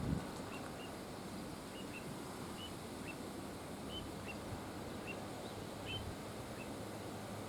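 Little ringed plovers giving short, high alarm calls, repeated about once or twice a second, over a steady rush of wind and river noise.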